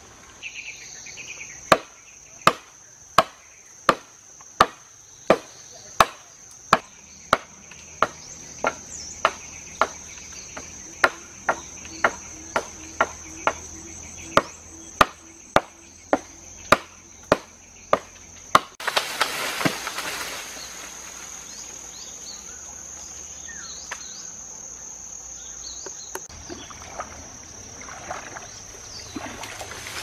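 Repeated sharp strikes, evenly paced at about three every two seconds, over a steady high insect drone. The strikes stop about two-thirds of the way through and a louder steady hiss takes over, the insect drone still running.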